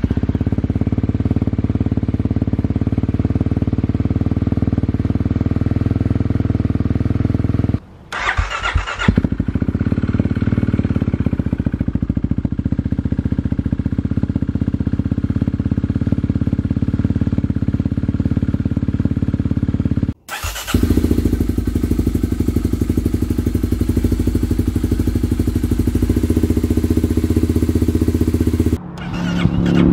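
Kawasaki KLX dual-sport bike's single-cylinder engine running steadily, heard in a series of exhaust sound clips joined by sudden cuts about 8 and 20 seconds in.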